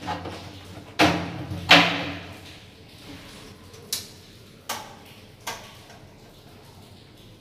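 Two loud hollow knocks from the plastic toilet flush tank being lifted off and handled, followed by three lighter clicks as the metal wall bracket is worked at.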